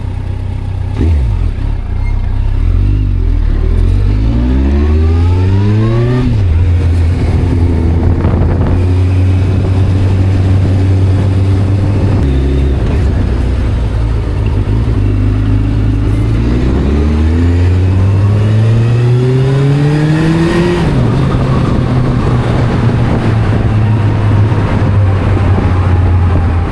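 Kawasaki motorcycle engine under way, running steadily between two spells of acceleration whose pitch climbs and then drops suddenly at a gear change, about six seconds in and again about twenty-one seconds in.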